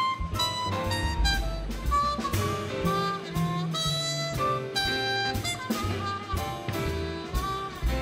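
Jazz band playing an instrumental chorus: a trumpet solo of held and moving notes over piano, bass and drums.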